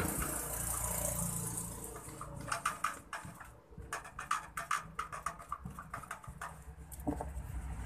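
Paint-loaded sponge dabbing against a wall, a quick, irregular run of soft pats starting about two seconds in and stopping about a second before the end.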